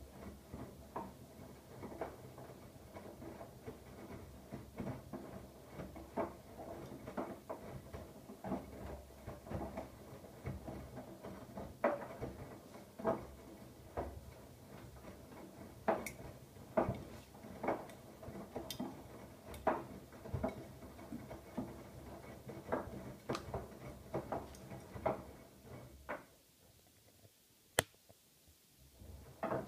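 Siemens iQ700 front-loading washing machine in its wash cycle: a steady motor hum while the drum turns, with irregular soft knocks and clicks of the tumbling load. Near the end the drum pauses for a few seconds, with one sharp click, as it stops between turns.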